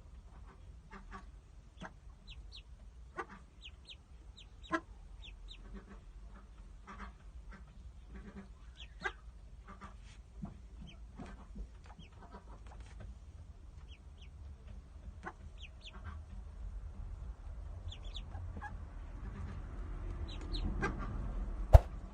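Newly hatched ducklings peeping: short, high, falling cheeps scattered throughout. Near the end there is louder rustling and a sharp knock.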